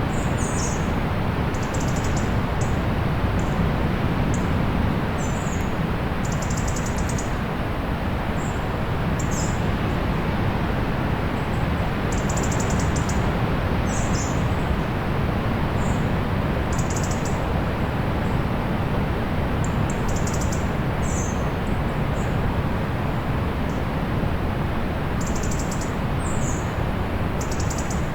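Small birds chirping in short, high calls every second or two, some gliding down in pitch, over the steady low rush of distant sea surf.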